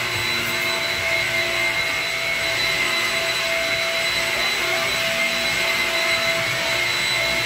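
Stick vacuum cleaner running steadily on the floor, a high motor whine over a rush of air.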